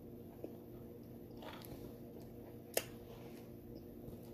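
Faint close-up chewing of a mouthful of cheeseburger, with a few small wet mouth clicks; the sharpest click comes near the end, over a low steady hum.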